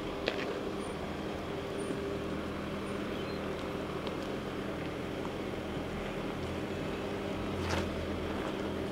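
Mercedes-Benz G 400 d's 2.9-litre inline-six turbo diesel running at a steady low crawl. Two sharp knocks, about a third of a second in and near the end, as the tyres go over trail rocks.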